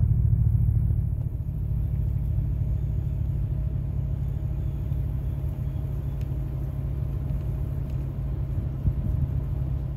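Vehicle engine idling: a steady low rumble.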